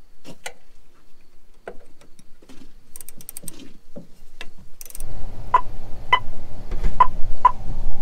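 Scattered clicks and scrapes of corn kernels and hand tools on metal as grain is dug out of a John Deere S670 combine's cleaning-shoe auger, clogged with corn. Past the middle, over a low rumble, come several sharp ringing metallic clinks.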